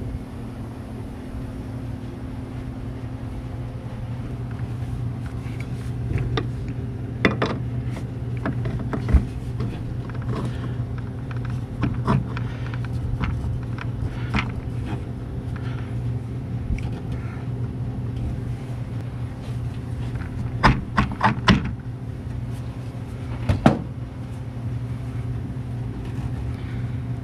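Light clicks and knocks as a new NBS-style master cylinder with a plastic reservoir is handled and set onto the brake booster studs for a dry fit, with a quick run of three or four knocks about three quarters of the way through. A steady low hum sits underneath.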